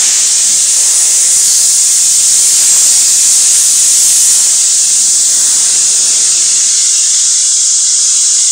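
Steady, loud hiss of factory-hall machinery noise, even and unchanging throughout.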